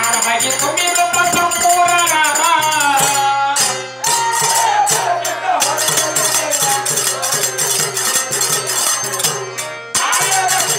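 Devotional bhajan: a man singing over a harmonium, with small brass hand cymbals clashing in a steady, quick beat. The singing pauses about four seconds in while the harmonium and cymbals carry on, and resumes near the end.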